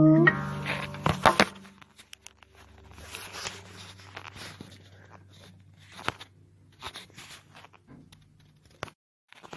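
An acoustic guitar's last chord cuts off just after the start, followed by scattered clicks, scrapes and rustling, loudest about a second in.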